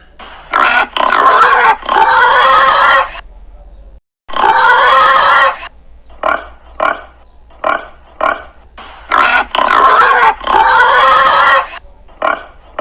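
Pigs grunting and squealing: short grunts between several loud squeals lasting up to about a second and a half each.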